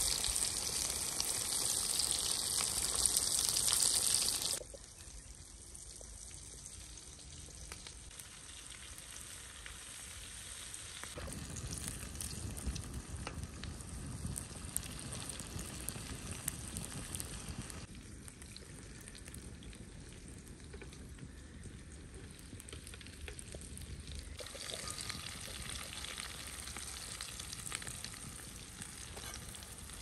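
Breaded meat cutlets deep-frying in hot oil in a wide pan, sizzling steadily. The sizzle is loudest for the first four or five seconds, then drops to a softer hiss that grows brighter again near the end.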